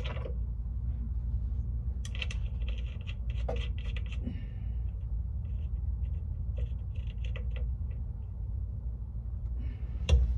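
Light clicks and scrapes of rear-shock mounting hardware (washers, bushings, nut) being worked into place by hand under the car, over a steady low hum. There is a sharper knock near the end.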